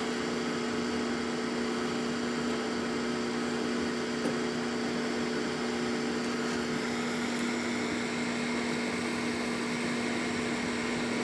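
Diode laser engraver cutting at full power: a steady hum with a hiss from its cooling fan and air assist. A faint higher whine joins about two-thirds of the way through.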